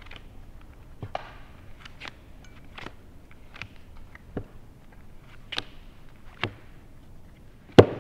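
Sharp, separate clicks and taps of playing cards and poker chips being handled at a card table, roughly one a second, with one louder click near the end.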